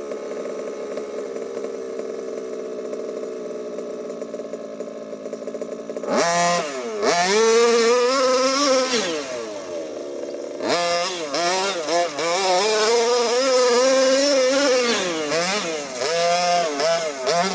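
HPI Baja 5T's 26cc two-stroke gasoline engine, fitted with a Jet-Pro tuned pipe. It runs at a steady pitch at first; from about six seconds in it revs hard, rising and falling repeatedly as the throttle is worked, easing off briefly around ten seconds before revving again.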